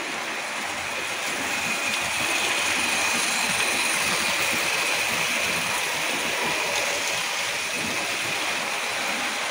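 H0 scale model trains running on the layout, a steady rolling rush of wheels on the rails. A thin steady whine joins about two seconds in.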